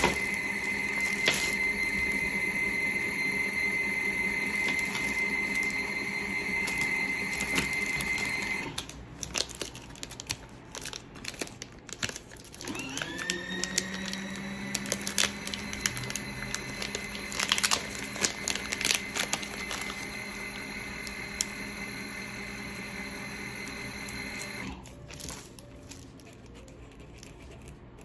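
Small electric motor of a portable mini washing machine running steadily through a wash cycle. It stops about nine seconds in, spins back up with a rising whine about four seconds later, and stops again near the end. Cellophane wrappers crinkle in the pauses.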